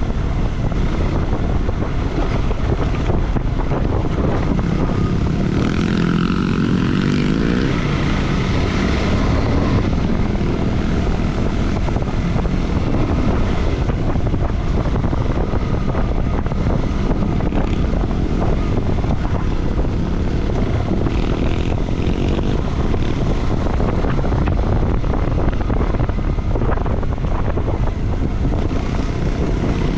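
Motorcycle engine running under way on a trail, mixed with heavy wind buffeting on the microphone, with a brief rise and fall in engine pitch several seconds in.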